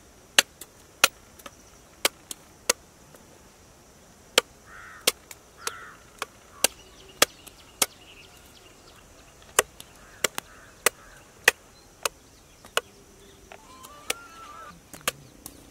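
A curved machete blade chopping into a green tender coconut, hacking away the husk to open it: sharp, separate strikes about two a second, with a short pause partway through.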